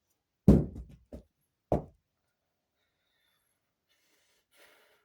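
Two dull knocks on something hard, about a second apart. The first and louder one has a couple of lighter knocks trailing after it.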